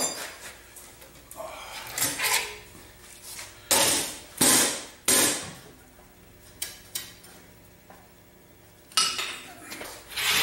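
Metal clanking and clinking as the compressor's flywheel is worked off its shaft and hung on a hoist chain: a string of separate sharp clanks at uneven spacing, some ringing briefly, with a lull about two-thirds of the way through.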